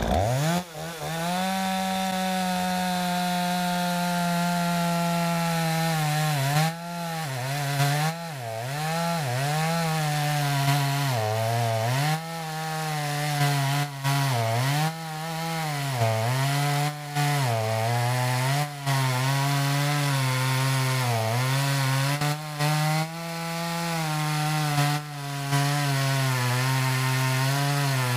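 Oleo-Mac 52 cc two-stroke chainsaw with .325 chain revving up to full throttle and cutting through a thick log. From about six seconds in, the engine note dips again and again as the chain bogs down in the wood, then recovers.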